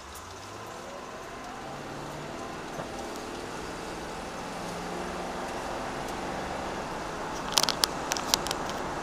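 Vehicle engine heard from inside the cab while accelerating, its pitch climbing and stepping through gear changes over steady road noise. A short run of sharp clicks comes near the end.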